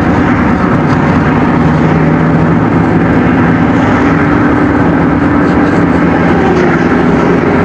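Car engines and road noise heard from a moving car in traffic: a steady engine drone over a loud rush of road noise, its pitch rising slightly about six seconds in.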